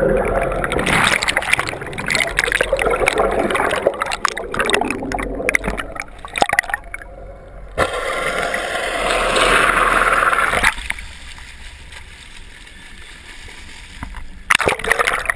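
Seawater splashing and rushing over an action camera's housing as it is dragged through the waves, dipping under and breaking the surface. The sound is choppy and crackling at first, settles into a steadier rush for a few seconds while the camera is underwater, turns quieter, and then a burst of splashing comes near the end.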